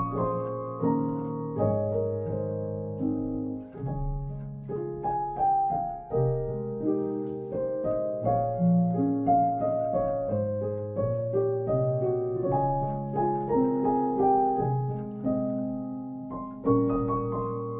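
Background piano music: single notes and chords that strike and fade, about two a second.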